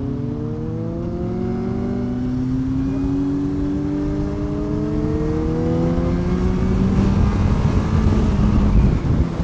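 Yamaha Fazer 1000's inline-four engine accelerating, its pitch rising, with a gear change about three seconds in. Wind rush builds up over the last few seconds as speed increases.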